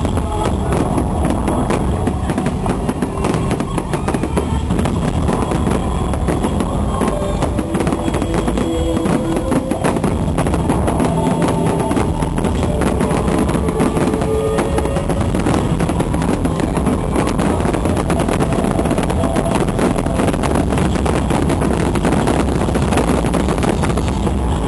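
Fireworks display: a dense, unbroken run of rapid bangs and crackling.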